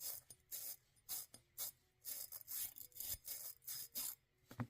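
A .22 bristle brush scrubbing back and forth in the firing pin channel of a Bersa Firestorm pistol slide: repeated short rasping strokes, about two or three a second.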